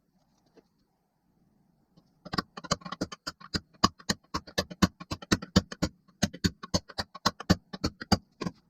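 Rapid run of sharp metal taps, about five a second, starting about two seconds in: a bearing race being driven into the aluminium engine case of a Sachs moped.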